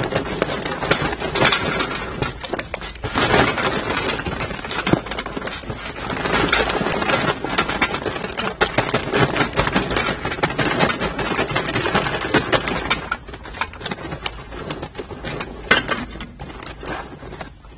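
Charcoal briquettes pouring from a paper bag into a metal chimney starter: a continuous clatter of many small knocks and rattles, easing off briefly partway through.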